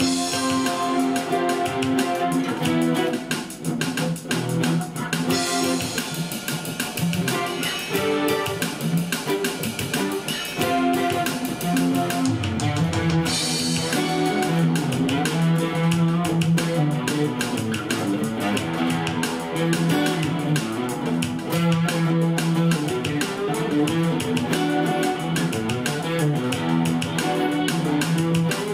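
Solo funk guitar jam: a guitar playing a repeating, rhythmic riff with sustained notes, run through an overdrive pedal and a multi-effects unit.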